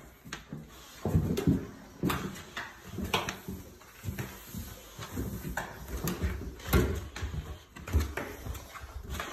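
Irregular thuds of steps going down hard wooden stairs, a puppy's paws and a person's footsteps, about one or two a second, starting about a second in.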